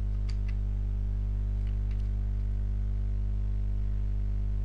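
Steady low electrical hum with a buzz to it on the recording. A few faint computer keyboard clicks come in the first two seconds.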